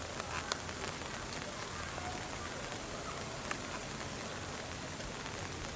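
Steady rain falling on tree leaves, with a few sharper drops ticking now and then.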